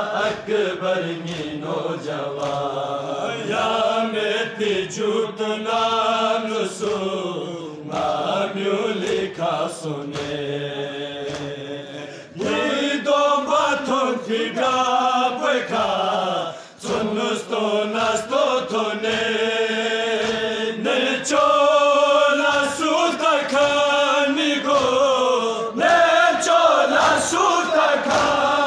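Men's voices chanting a Balti noha (Shia mourning lament) together, with the thuds of hands striking chests in matam keeping time with the chant.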